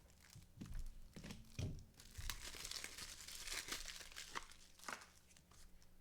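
Crinkling plastic and light clicks of trading cards being handled and slid into penny sleeves and rigid plastic top loaders; the rustle is densest in the middle.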